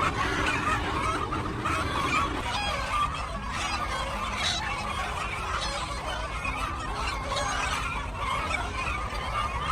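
A flock of chickens clucking and calling, many short overlapping calls with no pause.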